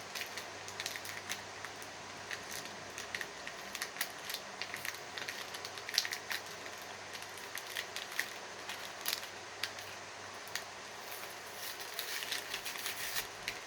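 Brown paper wrapping rustling and crinkling as a wrapped candle is unwrapped by hand, with many small irregular crackles and taps and a busier stretch near the end.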